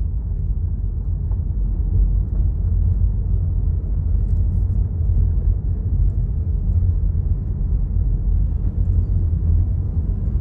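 Steady low rumble of a car driving in strong wind, wind and road noise with no distinct events.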